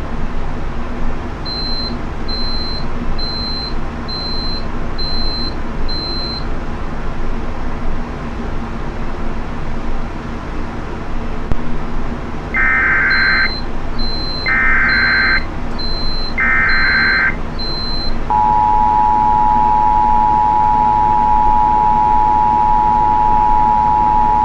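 Emergency Alert System header: three roughly one-second bursts of screeching SAME data tones, then the steady two-tone EAS attention signal starting about 18 seconds in. Two runs of six short high beeps sound near the start and again alongside the data bursts, over a constant low hum and hiss.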